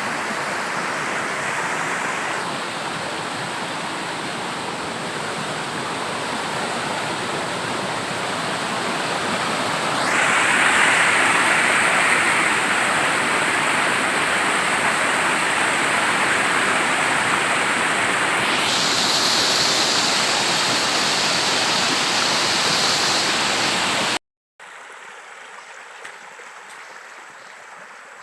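Waterfall, loud steady rushing of falling water, changing abruptly in pitch and loudness about 2, 10 and 18 seconds in. After a short dropout near the end it goes on much quieter.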